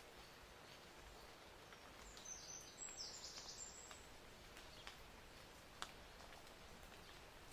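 Near silence of quiet outdoor ambience, with a short run of faint high bird chirps about two to four seconds in and a few soft clicks.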